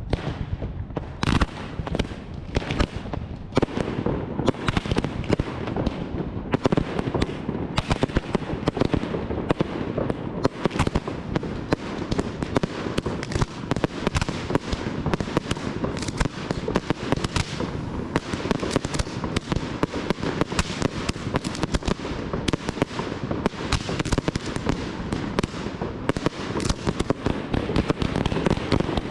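Aerial fireworks display (a Valencian castillo de fuegos) going off: a few separate bangs at first, then from about four seconds in a dense, unbroken barrage of bangs and crackling.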